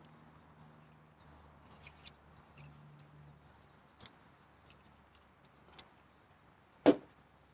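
Faint birds chirping over a low background, with a couple of light clicks and one sharp knock near the end as fishing line and a line spool are handled.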